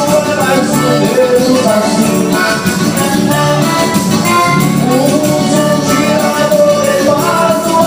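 Band music playing: a continuous melody line over a dense, steady accompaniment.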